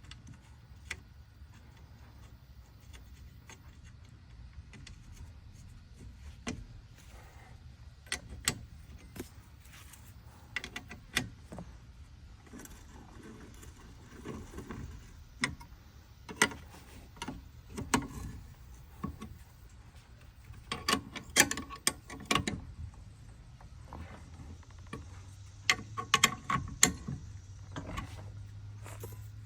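Irregular metallic clicks, clinks and knocks of hand tools and mower parts being handled while a drive belt is fitted on a walk-behind mower, over a low steady hum. The knocking gets busier after the first dozen seconds.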